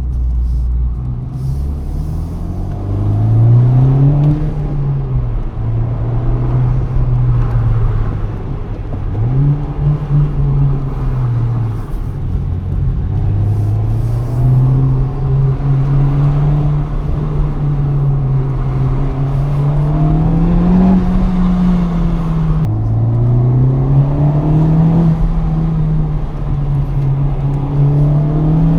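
Honda Civic Type R FK8's 2.0-litre turbocharged four-cylinder, heard from inside the car, climbing in revs and falling back again and again as the car accelerates, changes gear and eases off. One sudden drop in pitch about two-thirds through is a gear change. Road and tyre rumble runs underneath.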